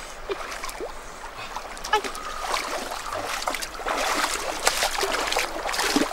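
Footsteps wading through a shallow river, the water splashing and sloshing around the legs over the steady rush of the flowing stream. The splashing grows louder and more frequent from about halfway through.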